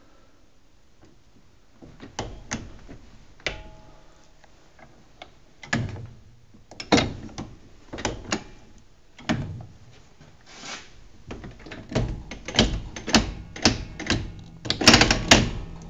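K-35 streetcar controller being worked by hand, its handle clicking and clunking from notch to notch: a string of sharp metal clicks, spaced out at first and coming quickly in a loud cluster near the end.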